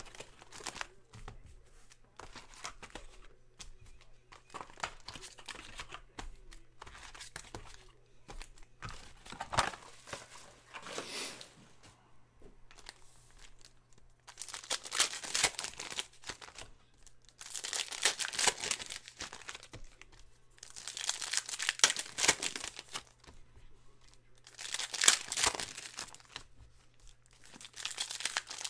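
Foil trading-card packs (2018-19 Donruss Optic basketball) being handled and torn open by hand. Soft rustling and shuffling comes first; from about halfway through, loud crinkling and tearing of the foil wrappers repeats roughly every three seconds as pack after pack is ripped open.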